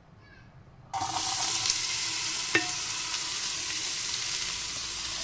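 Chopped onion hitting hot melted lard in a pressure cooker, starting to sizzle suddenly about a second in and frying steadily, with a single light knock partway through.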